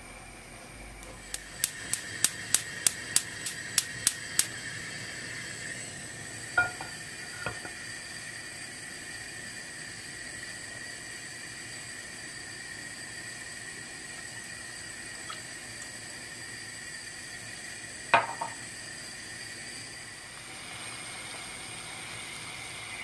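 Cooking sounds at a granite-coated frying pan on the hob. A steady hiss with faint high tones runs underneath. In the first few seconds there is a quick run of about ten sharp clicks. Two light ringing taps follow, then one louder ringing knock near the end, like a utensil striking the pan.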